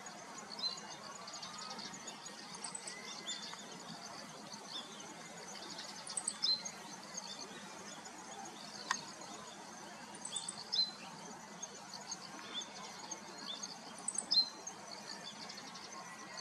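Meadow bunting singing: short phrases of high, clear notes, loudest about six, ten and fourteen seconds in, over a steady background hiss. A single sharp click about nine seconds in.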